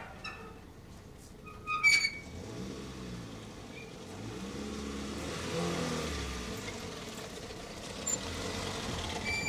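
A motor vehicle's engine running, its pitch sliding up and down, with a short high-pitched chirp about two seconds in.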